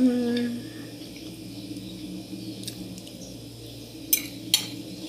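A short voiced hum rises and holds at the start, then a metal fork clinks twice against a china plate about four seconds in.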